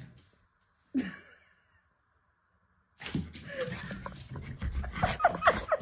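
A dog whining in short, high squeaky glides over a steady background noise, building toward the end. Before that, one short falling vocal sound about a second in, then a pause of near silence.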